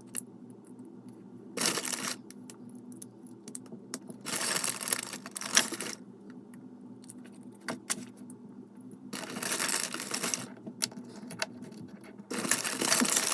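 Loose plastic Lego pieces rattling and clicking as they are handled and sorted, in four bursts of a second or so, with single clicks between.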